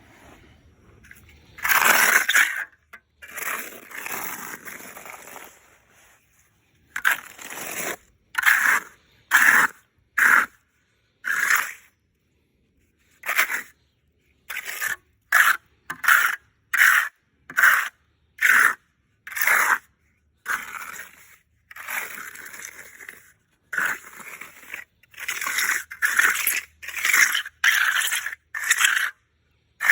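Trowel scraping wet sand-mix topping across a concrete slab in short, repeated strokes about a second apart, with a few longer sweeps.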